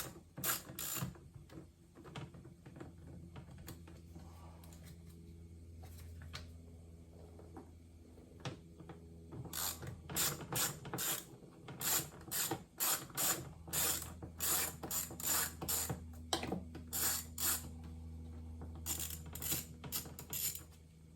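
Ratcheting hand tool clicking in quick runs of about four clicks a second as Torx screws are backed out of a car door's lock-bracket, with a steady low hum underneath.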